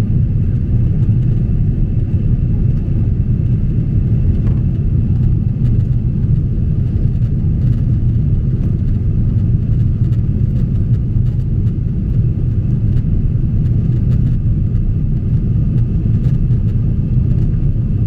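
Jet airliner cabin noise in flight: a steady low rumble of engines and airflow heard from inside the cabin, with a faint steady whine above it.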